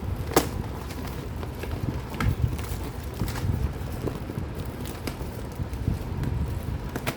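Handling of a jewellery parcel being unboxed: rustling and crinkling of packaging with several sharp clicks and taps, over a low rumble of handling noise.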